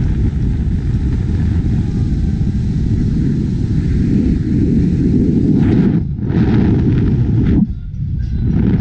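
Heavy wind rush and road rumble on the microphone of a camera on a car moving at speed, a steady low roar that briefly dips twice near the end.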